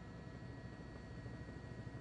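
Faint steady hum and hiss with a few thin, steady high tones and no distinct events: the background noise of a quiet audio feed.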